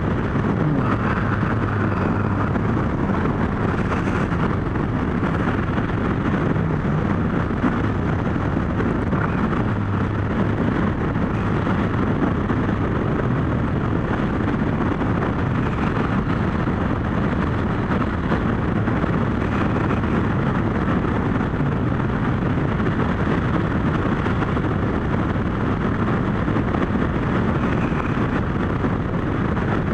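Kawasaki GPZ1100's inline four-cylinder engine running at road speed, its note drifting up and down a little with the throttle, with wind rushing over the microphone.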